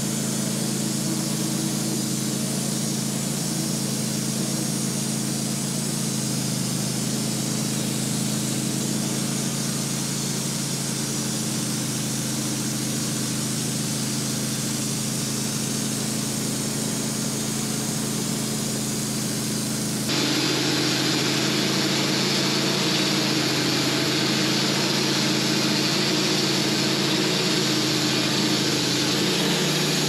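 Sawmill engine running steadily under load as the mill cuts through a large white oak log squared into a beam. The sound shifts suddenly about two-thirds of the way through, then runs on steadily.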